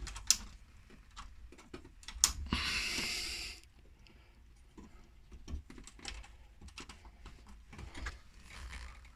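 Scattered small clicks and light scrapes of a plastic ceiling rose and its terminal being handled as the neutral wire is worked into the terminal, with a short rustling hiss about two and a half seconds in.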